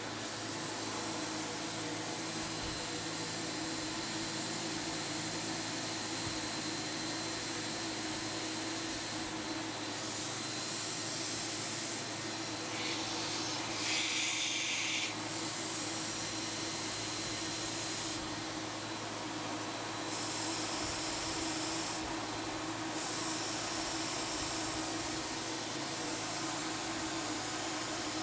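Apollo Precision 5 HVLP turbine running steadily at half speed, with the Apollo 7700 spray gun hissing as air and primer blow from its nozzle in long trigger pulls. The hiss breaks off briefly several times as the trigger is released, while the turbine hum carries on.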